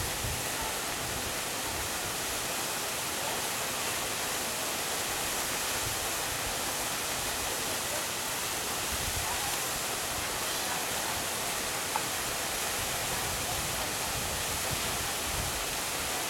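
Small waterfall pouring steadily into a rock pool: a constant rushing hiss of falling water.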